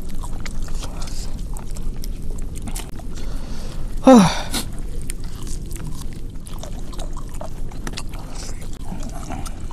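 Two people eating mutton curry and rice by hand: scattered small clicks and smacks of chewing and of fingers working the food on a banana leaf, over a low steady rumble. About four seconds in comes one short, loud sound that falls steeply in pitch.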